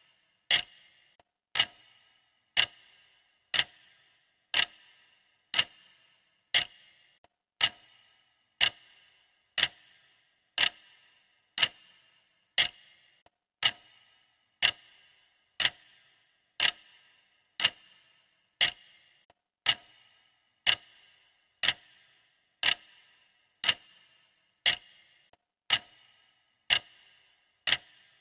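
Clock ticking steadily, about one sharp tick a second, each with a brief ring.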